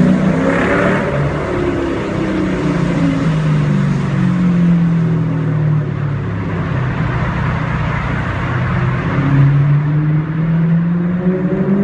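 Mercedes CLK500 V8 running through a loud straight-pipe (decat) exhaust under way. The engine note rises and falls with the revs, drops in pitch about five seconds in and climbs again near the end.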